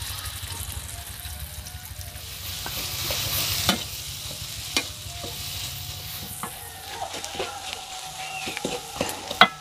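Ground spice paste of garlic, shallots, turmeric and red chilli sizzling as it fries in oil in a large wok. It is being stirred, and the spatula knocks sharply against the pan a few times.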